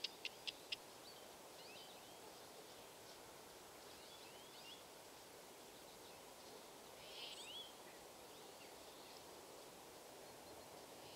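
Faint outdoor quiet with a few small bird calls: scattered short chirps, and about seven seconds in a brief trill ending in a rising note. A few sharp clicks sound right at the start.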